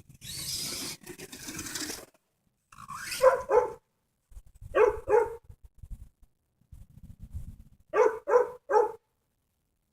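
A dog barking: seven short barks in three groups, two, then two, then three. Before the barks, a rushing noise for about the first two seconds.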